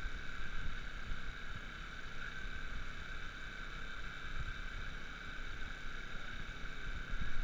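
Steady high-pitched whine of a camera drone's rotors, held at one pitch, over a low wind rumble on the microphone.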